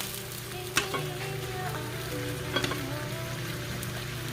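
Food being stirred in a cooking pot with a low sizzle. A utensil knocks against the pot twice, about a second in and again about two and a half seconds in.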